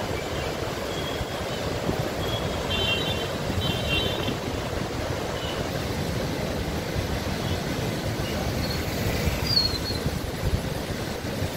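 Krishna river floodwater rushing through the raised gates of the Prakasam Barrage during a flood release: a steady, low rushing noise. A few faint high chirps sound over it.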